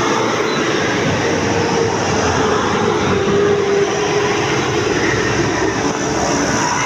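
Loud, steady rush and rumble of heavy road traffic going by.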